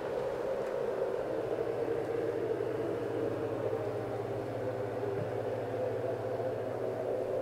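Steady whooshing noise with a low hum underneath, unchanging throughout.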